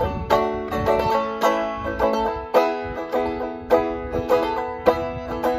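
Banjo played clawhammer style: a steady, rhythmic run of plucked, ringing notes.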